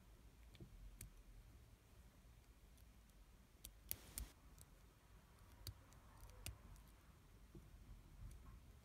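Faint, scattered small metallic clicks from a lock pick and turning tool working the pin stack of a 5-pin Brinks padlock under tension, with a louder cluster of clicks about four seconds in.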